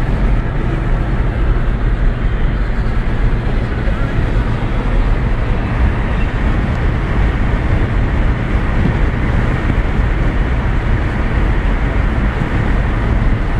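Steady road and wind noise of a car driving at speed, heard from inside the car: a deep, even rumble that does not let up.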